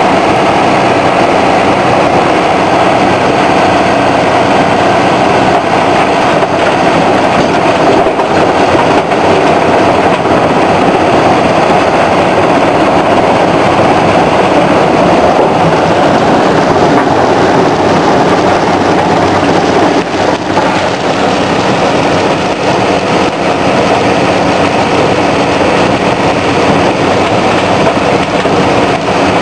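Extec tracked mobile crusher running and crushing rock, a loud steady mechanical din with scattered knocks. The diesel engine of a Case tracked excavator works alongside as it feeds rock into the crusher's hopper.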